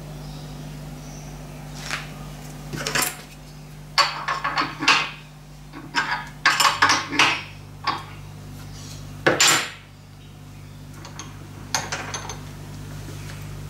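Metal clinks and knocks of a spanner working on a drill-grinder collet nut and a steel collet holder handled in a bench vise, in irregular clusters with a few lighter ticks near the end, over a steady low hum.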